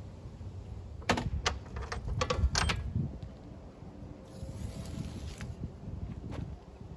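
An empty tin can and hand tools being handled on a work table: a cluster of sharp clicks and knocks over about two seconds. A little later comes about a second of tearing hiss as a strip of tape is pulled and laid around the can, then one more click.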